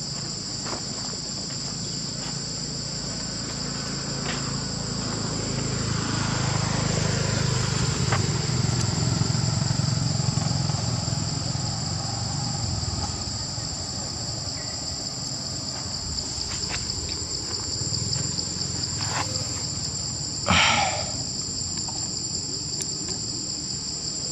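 Steady high-pitched insect chorus droning without a break. A low rumble swells and fades in the middle, and a short, sharp sound cuts in about twenty seconds in.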